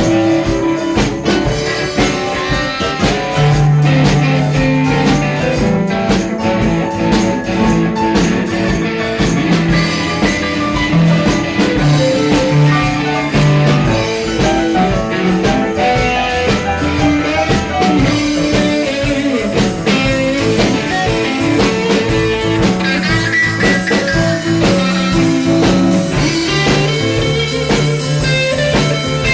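A live band playing a blues-rock number, with guitar over a drum kit.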